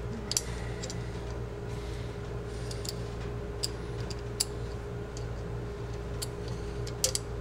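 Scattered small metallic clicks and ticks, about a dozen at uneven intervals, as a small bolt and nut are worked by hand into a Saiga 12 shotgun's steel receiver, over a steady low hum.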